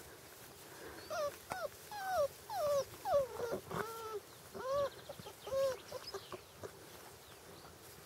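Magyar Vizsla puppies, five weeks old, whining and whimpering: about ten short cries, many falling in pitch, come thick and fast between about one and six seconds in.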